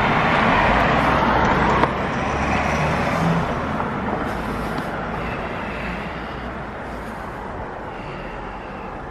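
Road traffic: a car passing close in the first two seconds, with a short sharp click as it ends, then steady traffic noise that slowly fades.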